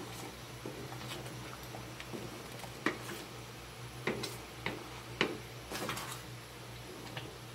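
Wooden spatula stirring thick tomato spaghetti sauce in a pan, giving irregular knocks and clicks against the pan, several in quick succession in the middle of the stretch. A low steady hum runs underneath.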